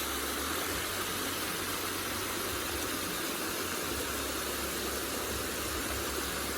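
Small creek waterfall rushing steadily over rock, with a boat motor idling underneath.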